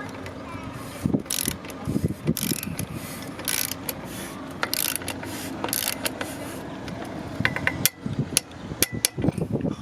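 Ratchet torque wrench clicking in short, irregular strokes while tightening a bicycle's loose bottom bracket.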